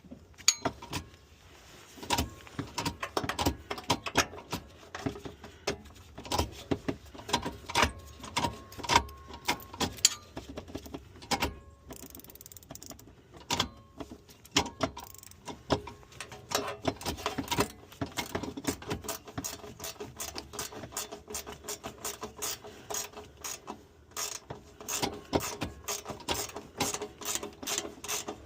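Hand ratchet wrench clicking in quick, irregular runs of strokes, turning bolts during suspension and shifter work on the car, with small metal tool knocks in between.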